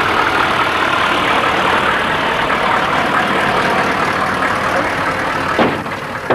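Vehicle running, with a steady dense hum of engine and road noise and a sharp knock near the end.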